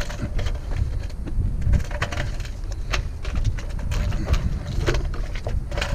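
Scattered knocks and rattles of a metal water heater being handled and moved, over a steady low rumble.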